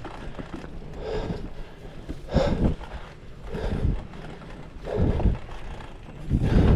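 Hardtail mountain bike ridden over a rough, rooty forest trail: a steady rattle with wind on the microphone, and loud puffs or jolts recurring about every second and a half.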